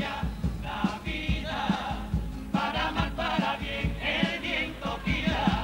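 Cádiz carnival comparsa choir singing together in harmony, accompanied by guitars and a drum beating a steady pulse.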